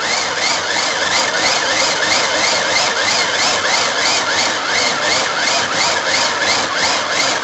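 Hand-powered manual blender being worked to blend passion fruit for juice: a continuous whirring of gears and blades with a rising whine that repeats about four times a second as the mechanism is driven.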